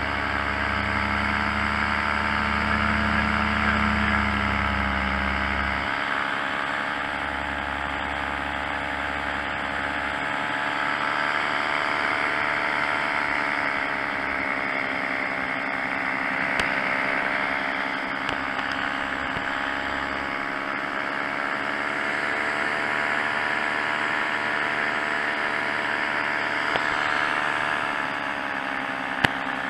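Tandem paramotor engine and propeller running steadily in flight, its pitch drifting slightly up and down. A single sharp click near the end.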